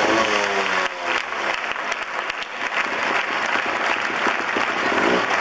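Large crowd applauding steadily in an arena. During the first second or so, a trials motorcycle's engine can be heard falling in pitch and fading under the clapping.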